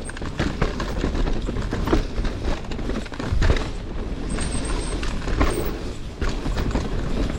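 Canyon Spectral 29 mountain bike riding fast down a dirt trail: tyres rolling over dirt and rough ground with the bike rattling and knocking over the bumps, and a heavier thud about halfway through.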